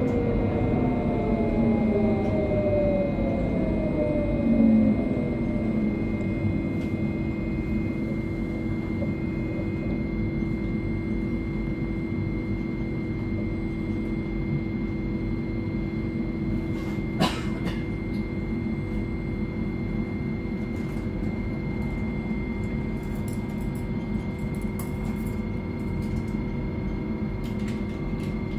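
Interior running noise of an electric tram: a steady low rumble and hum from the car on the rails, with a whine that falls in pitch over the first five seconds or so. A single sharp click comes about 17 seconds in.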